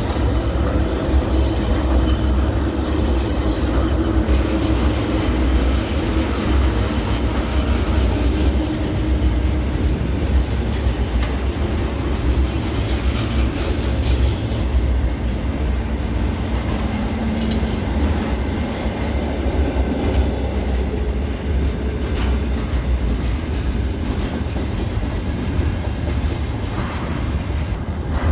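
Long container freight train rolling past: a steady low rumble of the wagons, with their wheels clattering over the rail joints.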